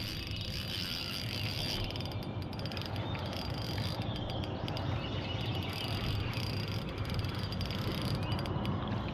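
Insects droning steadily in the riverside trees, with a faint high whine held on one pitch over a low steady rumble.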